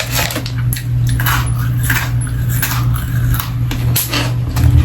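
Close-up chewing and crunching of strawberry Pocky biscuit sticks, in irregular crackly bites over a steady low hum.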